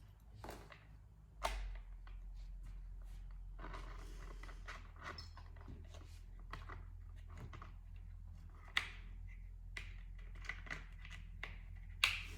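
Hand work on a chainsaw's parts at the bench: scattered light clicks and taps of tools and metal and plastic parts, a scraping rustle about four seconds in, and three sharper knocks, about a second and a half in, near nine seconds and near the end, over a low steady hum.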